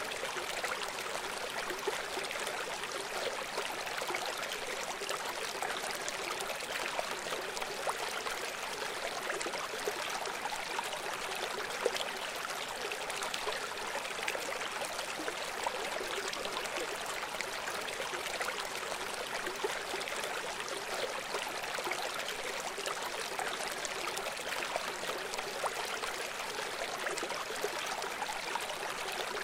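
A river running steadily: an even rush of water with no deep rumble.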